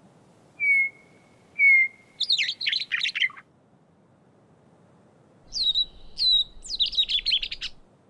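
Western meadowlark song, two phrases about five seconds apart, one the meadowlark's own and one a gray catbird's imitation of it. Each phrase opens with two clear whistled notes and breaks into a quick, gurgling jumble. The second phrase is pitched higher and has a low hum under it.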